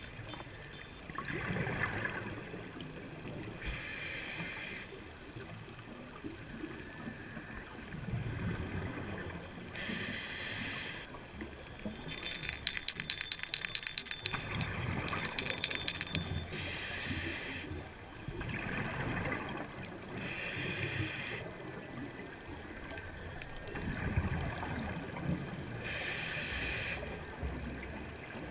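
Scuba diver breathing through a regulator underwater: a hiss on each inhale and a low bubbling rumble on each exhale, in slow, steady breaths about every six seconds. Around the middle, a few seconds of loud, rapid metallic rattling clicks.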